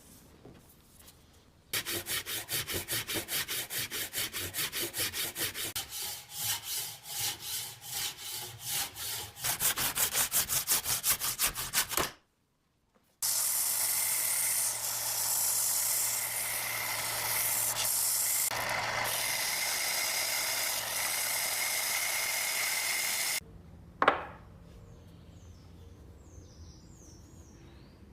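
Hand saw cutting a block of hardwood for a knife handle in quick, even strokes, several a second, for about ten seconds. After a short break an electric power tool works the wood steadily with a low motor hum for about ten seconds. It stops with a single sharp knock.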